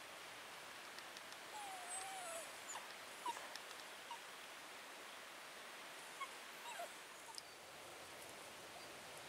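Italian greyhound whining faintly: a drawn-out wavering whine about a second and a half in, then a few short whimpers.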